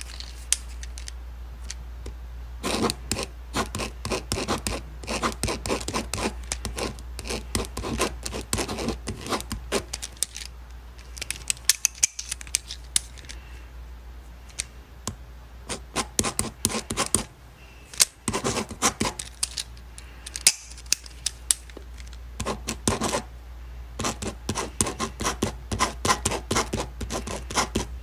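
Ballpoint pen writing on paper: quick scratchy strokes in bursts with short pauses between them, over a steady low hum.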